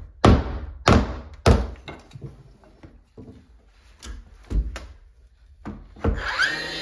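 Framing hammer driving a wooden shim in behind a door jamb: three hard knocks in quick succession, then several lighter taps. Music comes in near the end.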